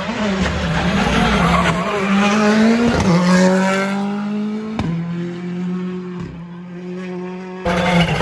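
Rally car engine revving hard, its pitch climbing and then dropping at sharp bangs on the gearshifts about three and five seconds in, then running at a steady pitch.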